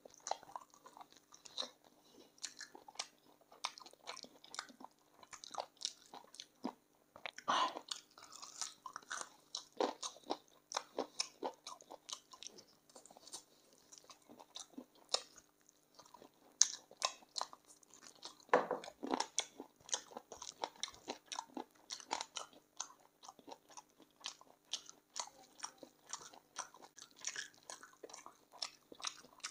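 Close-up chewing and crunching of chicken feet: a steady run of sharp, irregular crunches as the skin and cartilage are bitten and chewed, with a few louder crunches now and then.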